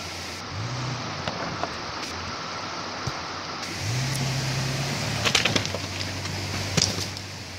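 Toyota Land Cruiser 80-series engine pulling at low speed over rocks, revving up briefly twice, the second time held for about a second and a half. Stones knock and crunch under the tyres a few times in the second half.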